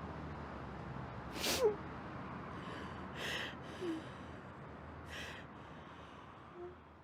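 A person sniffing sharply through the nose a few times, about every two seconds, over a faint low hum.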